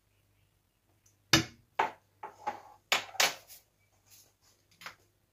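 A spoon knocking sharply against the rim of a non-stick pan several times as ghee is spooned into water heating in it, the knocks loudest in the first half and fainter near the end.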